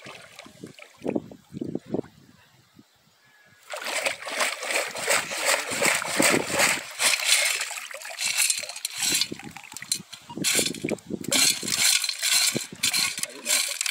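Water splashing and sloshing as a perforated metal sand scoop is shaken in shallow river water to wash the sand out of it, starting suddenly about four seconds in and going on in spells.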